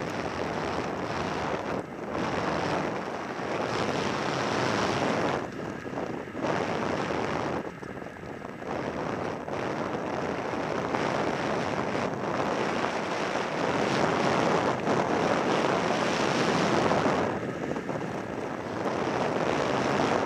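Wind rushing over the microphone and skis hissing and scraping on packed snow during a downhill run. The noise swells and eases several times as the skier turns.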